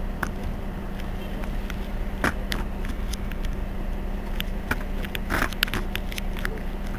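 Mercedes-Benz Citaro C2 city bus engine idling, a steady low hum, with scattered light clicks and two brief sharper noises about two and five seconds in.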